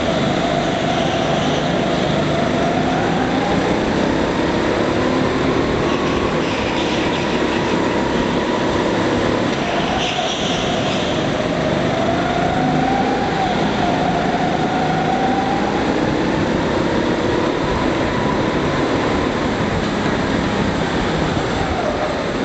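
Go-kart running at racing speed, its motor note rising and falling over several seconds as it speeds up and slows through the corners, over a constant rush of noise, inside an indoor kart hall.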